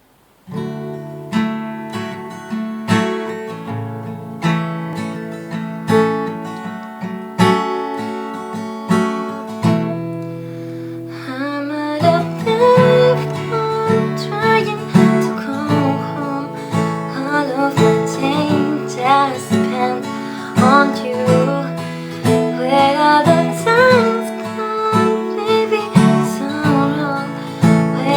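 Acoustic guitar strummed in a steady rhythm, starting about half a second in; from about 12 seconds in a voice sings over it.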